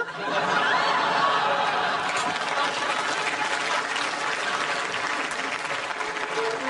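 Studio audience reacting to a gag: a loud crowd reaction that breaks out suddenly and slowly dies down.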